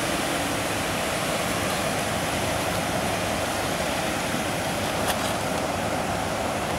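Steady rushing of flowing stream water, with one faint click about five seconds in.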